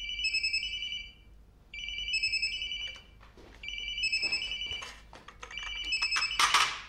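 Mobile phone ringtone ringing: an electronic warbling trill in bursts of about a second with short gaps, four times. A short clatter comes near the end.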